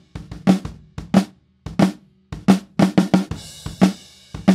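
Recorded snare drum heard on its soloed top microphone: a run of sharp snare strokes, some coming as flams (two hits slightly offset), with kick drum and cymbal bleed underneath.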